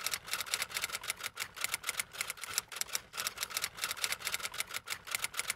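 Typewriter sound effect: a rapid, uneven run of key clacks, several a second.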